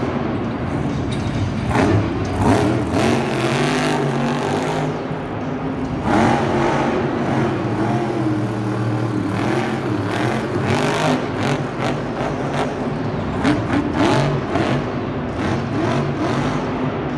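A motor vehicle's engine revving up and down over and over, with repeated sharp knocks.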